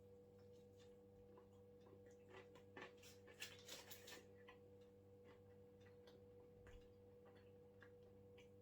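Near silence: a faint steady hum, with a short cluster of faint clicks and crackles about three to four seconds in.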